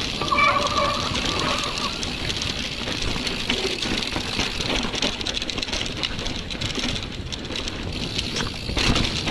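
Giant Reign mountain bike ridden fast downhill over dirt and rocks: tyres rolling and skidding on the trail, with the chain and frame rattling and clattering over the bumps, mixed with wind noise on the microphone. A brief wavering tone sounds in the first two seconds, and there is a louder jolt near the end.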